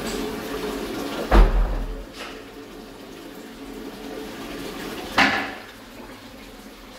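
Flush water running through a toilet pan fed by a high-level Shires Adelphi cistern, with two sharp knocks, one with a deep thud about a second and a half in and another about five seconds in.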